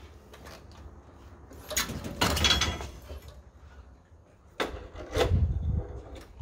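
Motorcycle being rolled backward off a steel front-wheel tow dolly: scraping and rattling as the front tyre leaves the dolly's wheel cradle, in two noisy bouts, about two seconds in and again from just before five seconds.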